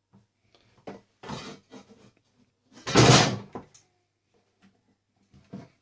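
Knocks and clattering of coffee maker parts being handled during dismantling for scrap, with one longer, louder clatter about three seconds in.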